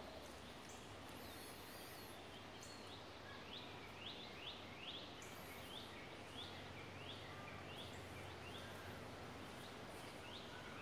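Faint outdoor background noise with a small animal chirping over and over, short high calls about two a second, starting about three seconds in.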